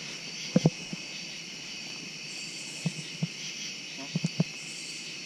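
Steady chirring chorus of crickets, with a few short, soft, low thumps scattered through it.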